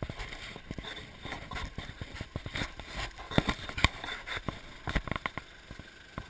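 Footsteps on a muddy track, heard as irregular knocks and rustles close to the microphone.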